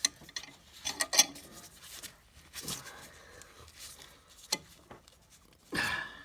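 Sharp metal clicks and clinks with a couple of short scraping rasps as a large C-clamp is cranked tight against a seized carriage bolt in an old engine's front mount, the bolt not budging.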